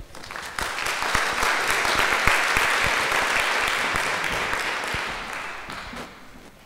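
Audience applauding, building quickly and then fading out near the end.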